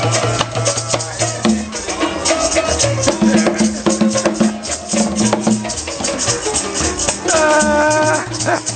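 Live acoustic band: a pair of maracas shaken in a quick, steady rhythm over acoustic guitar and hand drum, with a long held note near the end.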